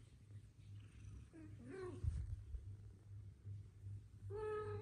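Cat meowing: a short wavering meow a little under two seconds in, then a longer, steadier one near the end. A soft low thump comes about two seconds in, and a faint low hum runs underneath.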